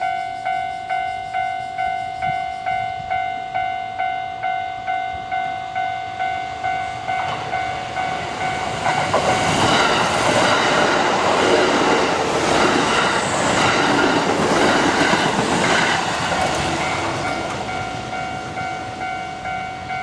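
Japanese level-crossing electronic warning bell ringing steadily, a little over two strikes a second. A Kintetsu electric train passes from about eight seconds in; the noise of its wheels and running gear drowns the bell for several seconds, and the bell comes through again near the end.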